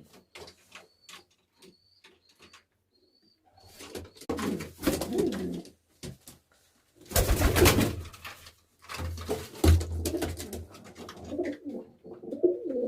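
Domestic pigeons, Baku pigeons, cooing: low throaty coos that come and go, louder in the second half. A loud rustling burst comes about seven seconds in, and there are a few faint ticks near the start.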